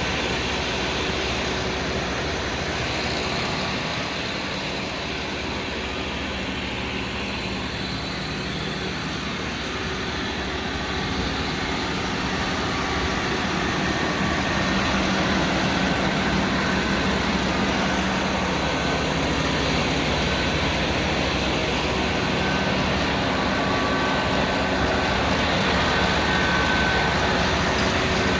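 Tractor engine running steadily while working a Massey Ferguson RB3130F Protec round baler-wrapper, growing louder about halfway through.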